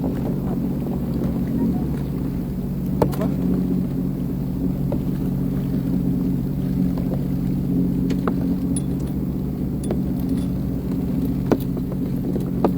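Sea-Doo Fish Pro personal watercraft engine running steadily at an even pitch, with a few sharp clicks or knocks over it.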